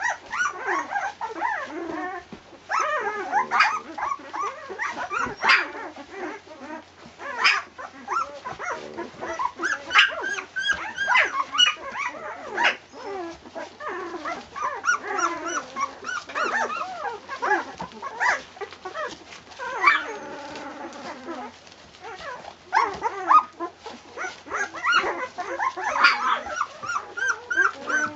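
Flat-coated retriever puppies whimpering and yipping, many short high cries that rise and fall and often overlap.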